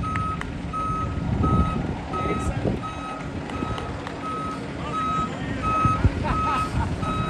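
Concrete mixer truck's backup alarm beeping steadily, about three beeps every two seconds, over the low rumble of the truck's engine as it reverses.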